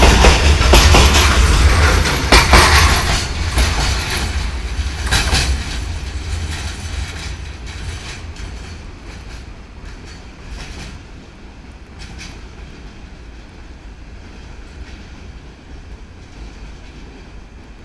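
Freight train of container flat wagons rolling past, wheels clacking over the rail joints. The clatter is loud at first and fades steadily from about two seconds in as the last wagons move away, leaving a faint rumble.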